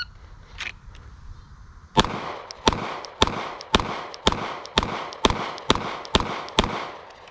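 Ten rapid shots from a Glock 17 Gen 5 9mm pistol, each with a short echo. The first comes about two seconds in, after the draw from the holster. The rest follow at about two a second, coming a little faster toward the end.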